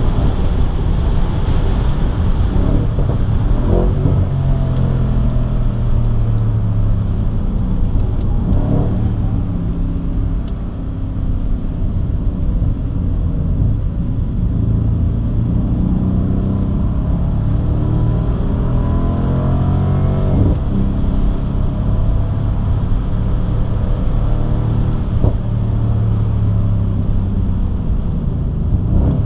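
Mercedes-AMG C 63 S twin-turbo V8 engine heard from inside the cabin, pulling hard on track. Its note climbs for a few seconds and then drops sharply at each gear change, four times, and it eases off briefly about eleven seconds in.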